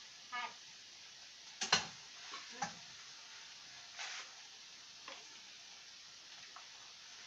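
A few sharp clanks and clatters of a cooking utensil against a frying pan, the loudest a little under two seconds in, over a faint steady sizzle of ground pork and potatoes frying.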